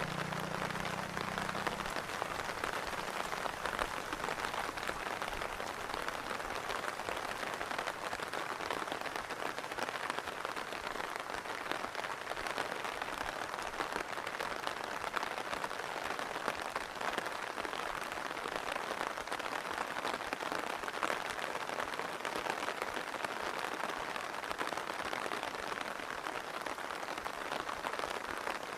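Steady rain falling, a dense even hiss of drops. A low engine hum fades away in the first couple of seconds.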